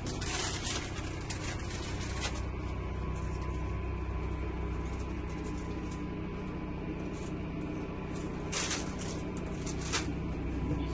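Steady low rumble inside a motorhome cabin on the road, with scattered clicks and rattles, the loudest around the start and again near the end.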